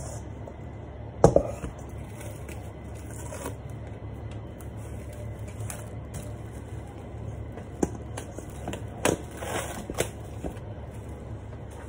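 Plastic cling film being pulled from its roll and stretched over a stainless steel bowl, giving crinkles and crackles with a few sharp taps. The loudest is a knock about a second in, and there is a cluster of crackles near the end.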